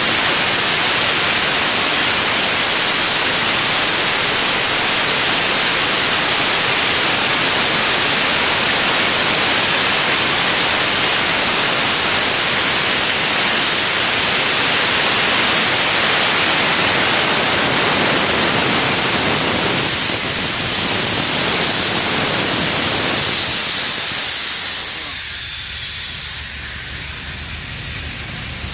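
Compressed air jetting from a hand-held blow nozzle onto white blotter paper for a blotter test of the compressor's air for oil and water: a loud, steady hiss. It weakens about four seconds before the end, leaving a fainter hiss.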